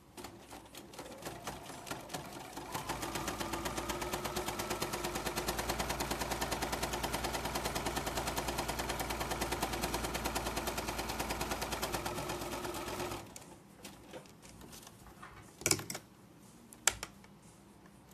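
Domestic electric sewing machine stitching a seam through cotton fabric: a few slow stitches that speed up after a couple of seconds into a steady fast run, which stops about thirteen seconds in. Two sharp clicks follow near the end.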